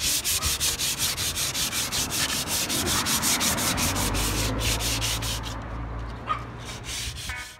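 Sandpaper rubbed by hand over the steel rear quarter panel of a 1963 Mercury Monterey, stripping old paint to bare metal: quick back-and-forth scratching strokes, about six a second. The strokes slow and soften near the end.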